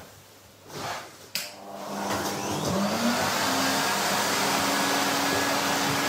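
A couple of knocks, then a vacuum cleaner is switched on about two seconds in: its motor winds up with a rising whine and then runs steadily.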